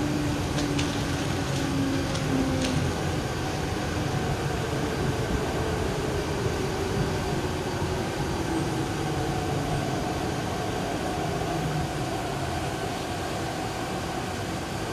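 Interior of a Hyundai Rotem R-train electric multiple unit braking into a station: a steady rumble of running gear with a faint motor whine that slowly falls in pitch as the train slows. A few light clicks come in the first three seconds.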